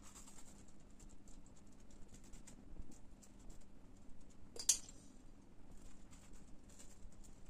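Sesame seeds sprinkled by hand, pattering onto pide dough and the baking tray as a run of faint light ticks, with one sharper click about four and a half seconds in.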